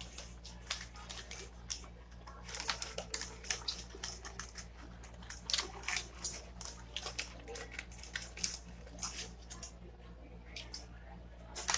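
Close-up eating sounds: irregular wet clicks and smacks of chewing and food being handled, thickest between about two and ten seconds in, over a steady low hum.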